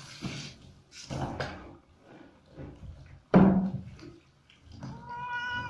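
Wet cat meowing while being bathed: one drawn-out meow at a steady pitch near the end, after a sudden loud sound a little past halfway and short bursts of splashing and rubbing of wet fur.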